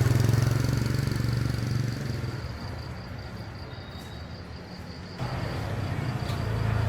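Small motorbike engines: one running close and fading away over the first couple of seconds, then another coming in suddenly about five seconds in and getting louder.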